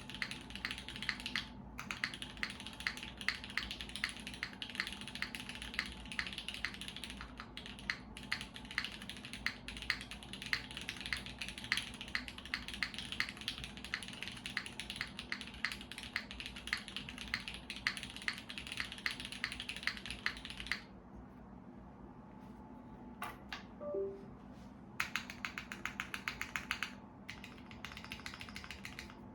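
Fast, continuous typing on a SINGA Unikorn R2.1 custom mechanical keyboard with lubed Cherry MX2A Black linear switches in an aluminium plate, O-ring mounted, with GMK keycaps. The typing stops for about four seconds roughly two-thirds of the way through, then starts again.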